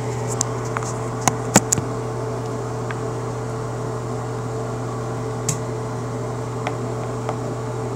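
Steady low machine hum, with a few sharp clicks and knocks about a second and a half in as the phone is set down on a surface, and one fainter click later.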